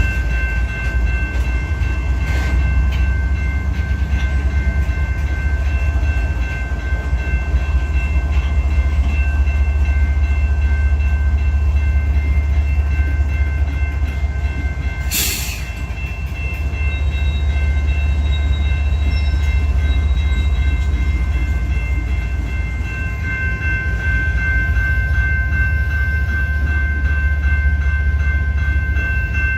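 Union Pacific freight train running, a steady low rumble with a few thin, steady high-pitched tones over it. A single sharp crack sounds about halfway through.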